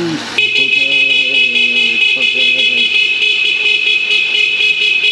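Electric horns on several Surron electric dirt bikes honking together in a long, steady blare. It starts suddenly about half a second in and echoes in a tunnel.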